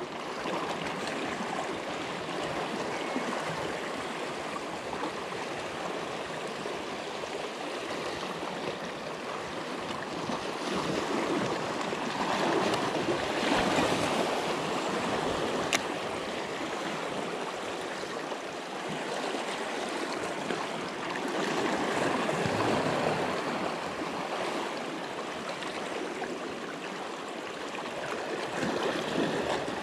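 Small waves washing and gurgling among shoreline rocks, a steady rush that swells a few times as surges come in, with one sharp click about halfway through.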